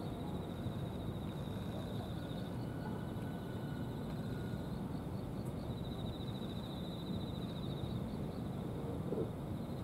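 Outdoor ambience: a steady low rush, with a high, thin, pulsing trill that comes and goes, loudest in the middle of the stretch.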